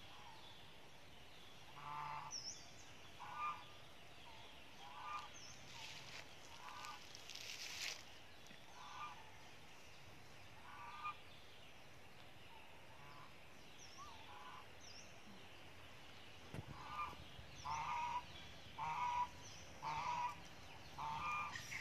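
Short animal calls repeated about every second or two, coming faster and louder near the end, with small high bird chirps between them and a brief rustle partway through.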